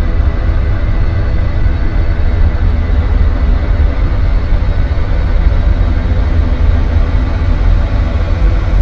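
Ambient noise music: a loud, steady, deep rumbling drone with hiss above it and a faint thin high tone.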